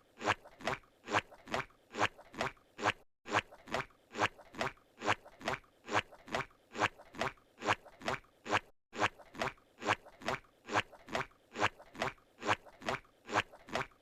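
Squidward's cartoon footstep sound effect from SpongeBob SquarePants: evenly paced, squishy pitched steps, about two a second. There are short breaks about three seconds in and near nine seconds, where the loop restarts.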